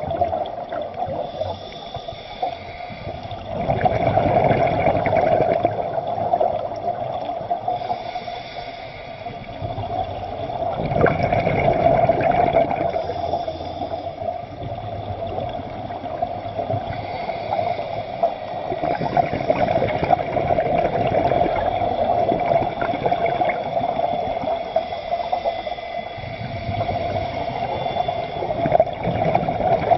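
Underwater sound of a scuba dive: water gurgling, with a steady hum and louder bubbling swells about every seven to eight seconds.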